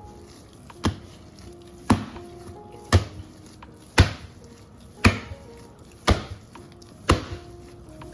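A knife chopping on a cutting board in a steady rhythm, about one stroke a second, eight strokes in all, over quiet background music.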